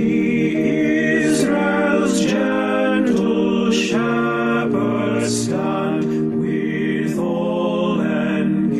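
Slow intro music with sustained, chant-like singing voices, the notes held and changing about once a second.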